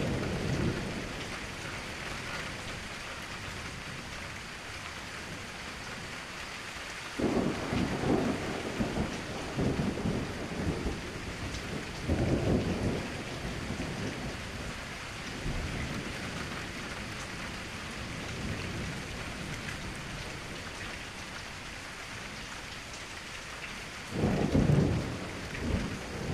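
Steady rain falling, with thunder rolling several times over it: a rumble dying away at the start, a longer roll about a quarter of the way in, a shorter one soon after, and the loudest rumble near the end.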